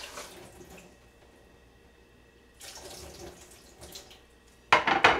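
Kitchen sink tap running in short spells as frozen dumplings are rinsed under it on a plate, ending in a much louder burst of water near the end.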